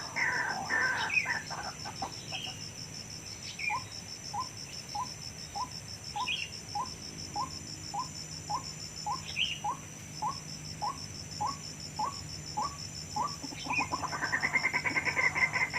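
White-breasted waterhens calling. Loud, rapid repeated calls at the start give way to a slow series of short rising notes, about two a second, and near the end a loud, fast chorus of calls breaks out again. A steady high pulsing buzz runs behind.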